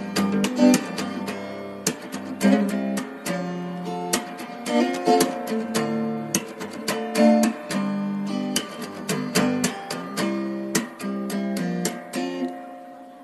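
Background music: acoustic guitar, strummed and plucked, with notes that ring and die away.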